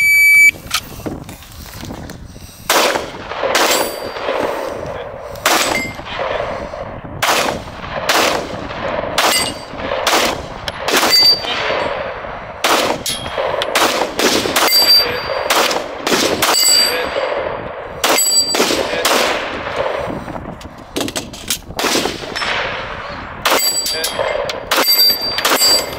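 Gunshots on a shooting range, about twenty at irregular spacing of roughly one a second, each with an echoing tail. Several are followed by a brief ringing ding, like steel targets being hit.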